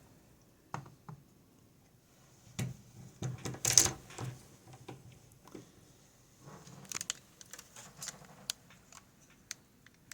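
Small metal clicks, taps and rattles of a picked pin-tumbler lock being handled and taken apart with tools, coming in irregular bursts, the sharpest click nearly four seconds in.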